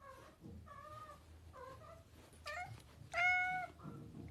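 Cat meowing: four short, faint, high meows, then a louder, longer meow held at a steady pitch about three seconds in.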